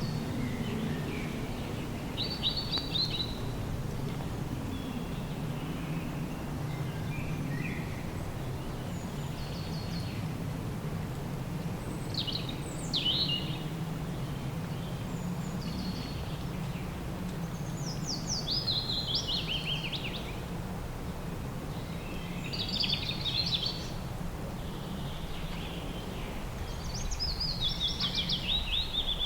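Birds calling in scattered bursts of quick, high, falling chirps, over a steady low hum.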